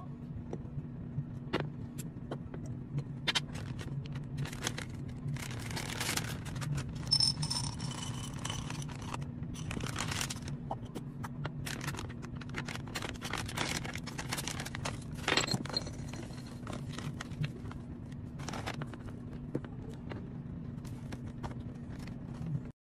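Candy and glass jars being handled: repeated clicks and clinks of pieces and lids against glass, with several stretches of plastic candy bags crinkling, over a steady low hum.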